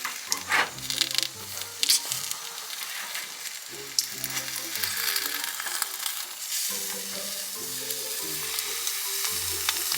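Bacon frying in a pan with a steady sizzle, with a few sharp clicks of a utensil against the pan. Music with a low bass line plays underneath.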